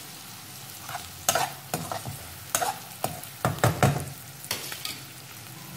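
A slotted steel spatula stirs chopped onions and green chillies frying in oil and butter in a coated wok over high flame. The food sizzles steadily throughout, and the spatula scrapes and knocks against the pan at irregular moments.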